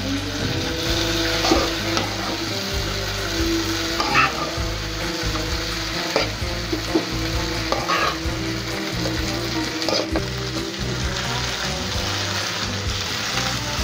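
Boiled peas and potato hitting hot mustard oil and browned onions in a frying pan: a steady frying sizzle. Every two seconds or so a metal spoon clinks against the pot and pan as the peas are scooped in and stirred.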